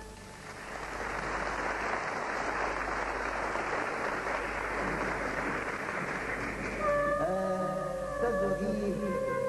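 Audience applause for about six seconds after a sung phrase. About 7 seconds in, the accompanying ensemble comes back in with a long held note.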